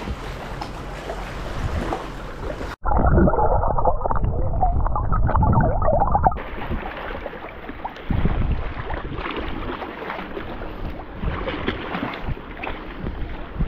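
Sea kayak paddling: paddle strokes and water lapping against the hull. About three seconds in, a few seconds of loud, muffled gurgling and sloshing heard underwater. Near the middle, clearer paddle splashes and lapping water return.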